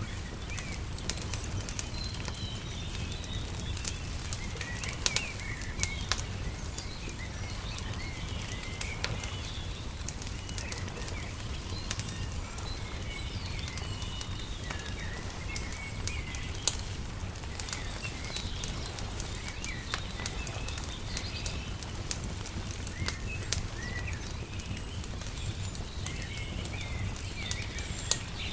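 Wood fire crackling, with scattered sharp pops, over steady chirping of small birds and a low, even rumble underneath.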